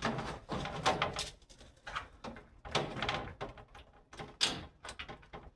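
Thin plastic speaker-pod lower door panel being hung on screws in a car door: irregular knocks, clicks and scraping of plastic against the door.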